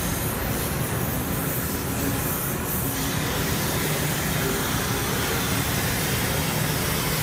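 Keipertech KT Series hydrogen (HHO) torch flame hissing steadily, the hiss growing fuller and higher about three seconds in.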